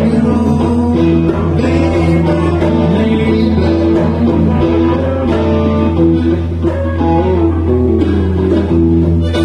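Live blues-rock jam: guitars picking a shifting melodic line over an unbroken low didgeridoo drone, with drums.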